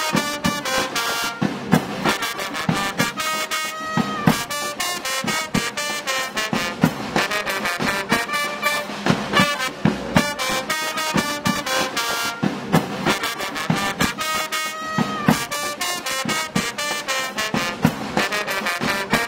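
Small street marching band playing: brass horns such as trumpets carry a tune over a steady beat of bass drum and snare.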